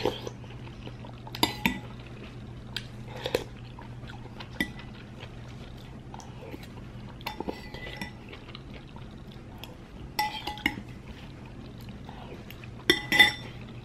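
Metal spoon clinking against a ceramic bowl, between short slurps of hot soup off the spoon. The sounds come in scattered bursts, the loudest cluster near the end, over a steady low hum.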